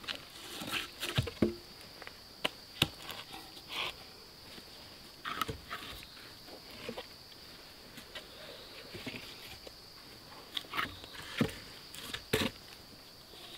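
Firewood being handled: wooden sticks and logs knocking together in irregular sharp clacks, with some rustling, the loudest knocks a little after the start and near the end. Behind it, a steady high-pitched drone of insects.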